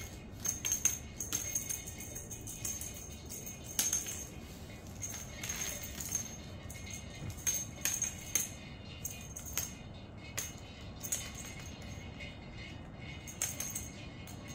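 A small bell jingling in irregular shakes, each one a short bright ring.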